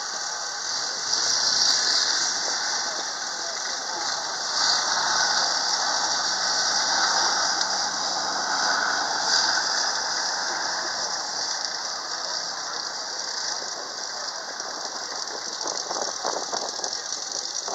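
Tracked armoured vehicles running across a display field: a steady high squealing hiss over a faint low engine hum, swelling a little twice in the first few seconds.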